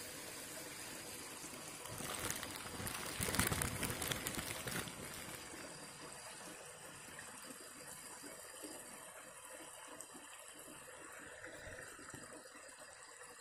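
Water of a rocky stream trickling and running steadily, with a louder, crackly noisy spell about two to five seconds in.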